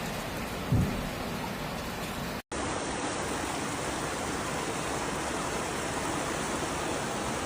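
Steady rushing noise of heavy water, rain and floodwater, with a brief low thump about a second in and a split-second dropout from a cut about two and a half seconds in.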